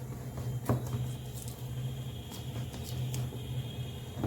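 Scattered light clicks and taps of kitchen handling over a steady low hum, with one sharper click about two-thirds of a second in.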